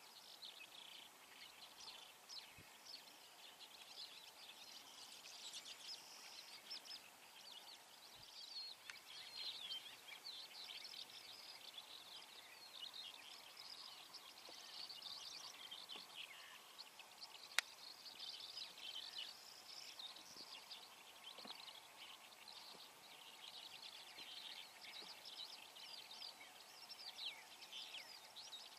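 Faint chorus of many small songbirds, chirping and trilling without pause. A single sharp click about two-thirds of the way through.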